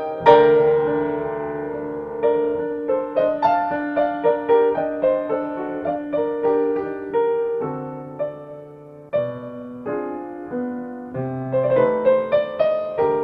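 Solo piano music playing in the background: a piece of single notes and chords, with a loud chord just after the start that fades, and a quieter stretch before another chord about nine seconds in.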